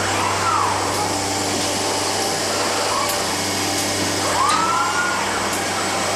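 KUKA palletizing robots running on a production line: a steady machine hiss over a low hum, with a motor whine that rises and falls in pitch twice as the arms swing, and a few light ticks.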